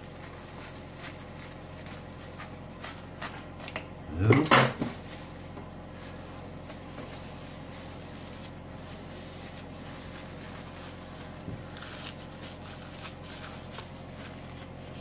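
Clear plastic film crinkling and rustling as hands wrap crumbly pie-crust dough and press it into a ball, with one brief louder sound about four seconds in. A steady low hum sits underneath.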